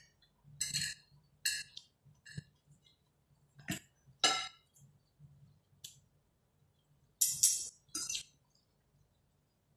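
Metal spoons and forks clinking and scraping against plates during a meal: scattered short clinks about once a second, with a louder cluster of several near the end.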